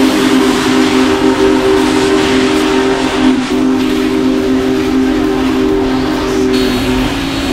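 Union Pacific Big Boy No. 4014 steam locomotive sounding its chime whistle, several notes together in a long, nearly unbroken blast, over the hiss of steam as the engine passes.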